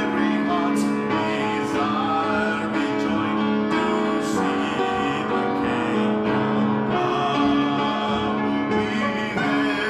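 Church praise-and-worship music: a band with keyboard playing a song, with voices singing and occasional cymbal crashes.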